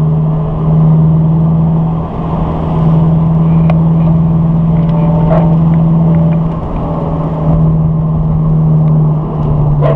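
Subaru BRZ's flat-four engine droning steadily under load from inside the cabin, the note dipping briefly a few times, over tyre and rain noise on a wet road.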